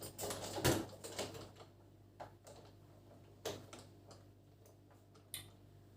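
Clicks and light rattles of a ring light and its stand being handled and put together: a quick run of clicks in the first second or so, then a few single clicks spread out.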